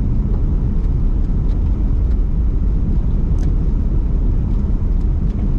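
Car driving, heard from inside: a loud, steady low rumble of road and wind noise in the cabin, with a few faint ticks.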